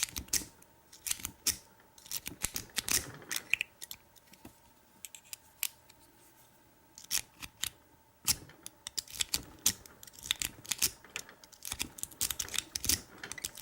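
Lock-picking rake worked in and out of a pin-tumbler lock cylinder, rapid metallic clicking and scraping over the pins in bursts, with a quieter stretch midway.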